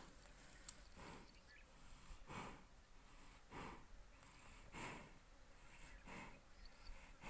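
Faint, slow breathing: five soft breaths evenly spaced about every second and a quarter. A single sharp click comes about two-thirds of a second in.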